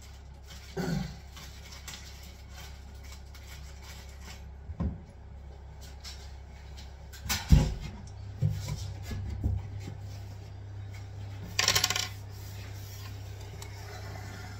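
Scattered knocks and small hard clinks from work on a kitchen worktop being fixed down to its base units, the loudest knock about seven and a half seconds in and a short rasping burst about twelve seconds in. A low steady hum runs underneath.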